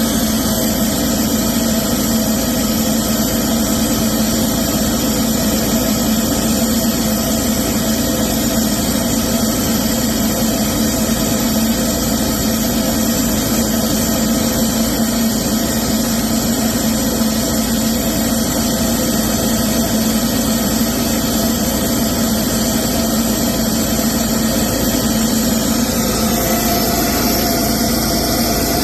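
Diesel engine running steadily at a constant speed during an exhaust particulate-filter regeneration.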